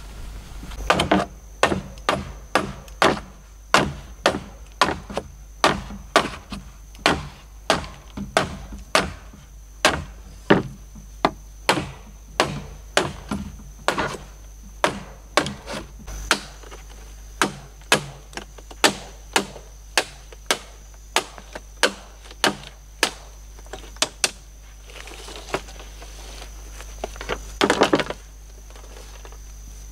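Large knife chopping into a green bamboo pole in steady repeated blows, a little under two a second. The blows pause briefly near the end, then come as a quick cluster of a few more.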